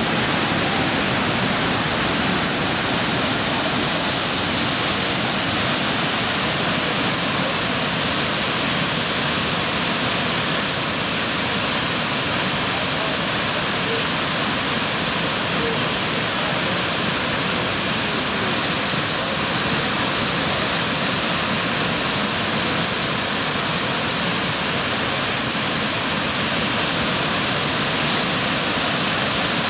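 Burgess Falls, swollen with floodwater after a hard rain, pouring over its rock ledge: a loud, steady, unbroken rush of falling water.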